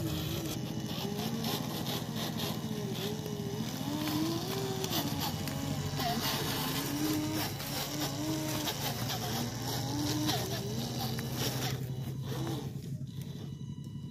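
Small electric motor and gearbox of an RC tractor whining as it drives and pulls a plough through soil, the pitch wavering up and down with throttle and load. It grows quieter near the end.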